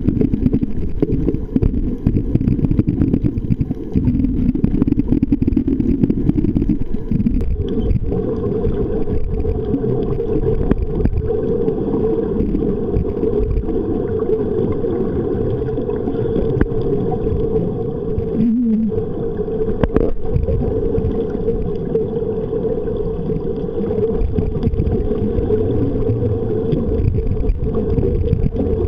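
Muffled, continuous underwater rumble of water moving around the camera, deep and dull with little high sound, and a single sharp click about twenty seconds in.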